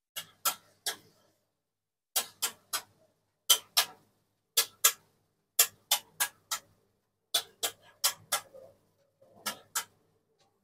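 Metal spatula clacking and scraping against a flat dosa griddle as dosas are loosened and lifted: short sharp strikes in quick runs of two to four, about three a second, with brief pauses between runs.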